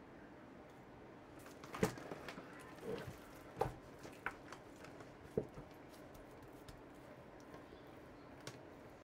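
Raw pork shoulder being handled and shifted on a wooden cutting board: a few soft knocks and wet slaps of meat against wood at irregular intervals, the loudest about two seconds in, over a faint steady hiss.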